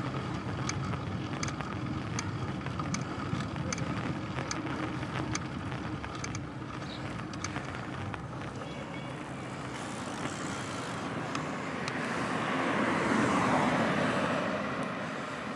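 Tyre and road noise from a bicycle ride with a regular tick about twice a second, then a car overtaking close by, its sound swelling about three-quarters of the way through and fading near the end.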